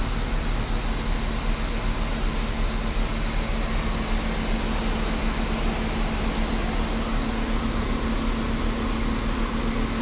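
Mercedes-Benz Axor 1824's 240 bhp turbo diesel engine idling, a steady hum over a low rumble, heard from inside the cab.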